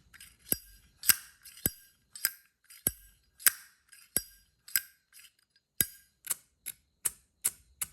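Brass-cased Zippo lighter being worked by hand, its lid flicked open and snapped shut over and over: a string of sharp metallic clicks with a short ring, about two a second.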